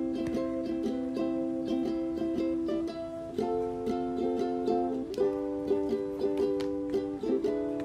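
Background music: a light tune on plucked strings.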